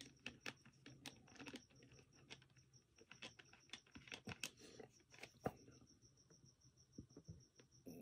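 Close-miked chewing of a mouthful of pozole: soft, irregular wet mouth clicks and small crunches, with one sharper click about halfway through. A faint, high, evenly pulsing tone runs behind.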